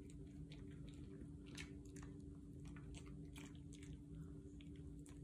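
Miniature schnauzer chewing a tough, chewy stick-shaped dog treat: faint, irregular clicks and crunches as its teeth work the treat.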